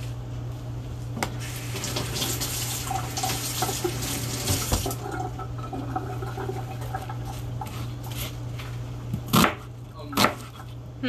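Chef's knife chopping an onion on a cutting board: two sharp chops about a second apart near the end. A steady low hum lies underneath, with a rushing hiss for a few seconds in the first half.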